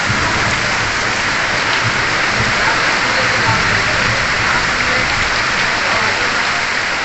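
Torrential rain pouring down onto a waterlogged street, a dense, even hiss that holds steady throughout.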